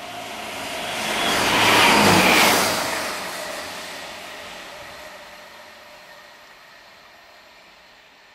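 Chiltern Railways diesel multiple unit passing through a station at speed: a rush of engine, wheel and air noise that swells to its loudest about two seconds in, then fades away as the train recedes.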